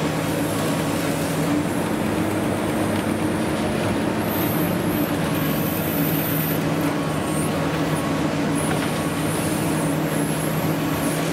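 Long-reach demolition excavator's diesel engine running steadily with a low hum, under a continuous rush of noise, while it works through concrete and rebar. A faint high whine comes and goes over it.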